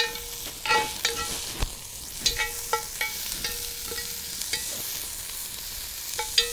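Chopped onions and garlic sizzling in hot oil in a cast-iron Dutch oven while being stirred. A metal utensil scrapes and knocks against the pot about a dozen times, each knock ringing briefly.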